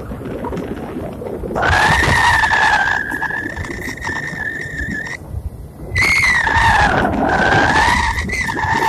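Wind rushing over a phone's microphone high in the air, with a high whistling tone that holds steady, cuts out for about a second midway, then returns wavering up and down.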